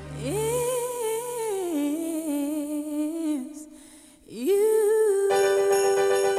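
Christmas pop song: a solo voice sings a slow, gliding melody, dips briefly, then holds one long note as jingle bells and a full band come in about five seconds in.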